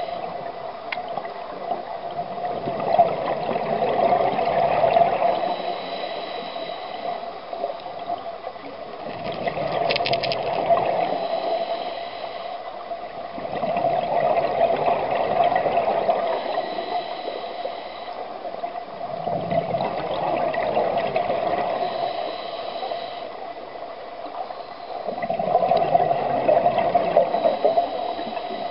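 Scuba diver breathing through a regulator underwater: exhaled bubbles gurgle in swells every five to six seconds, about five breaths, with quieter inhaling between them.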